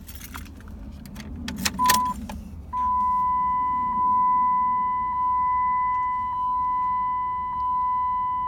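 Keys rattling and clicking in the ignition of a Dodge Ram 3500, then a short beep about two seconds in, followed by the dashboard warning chime as the ignition is switched on: one steady high tone that pulses roughly once a second, with the engine not yet running.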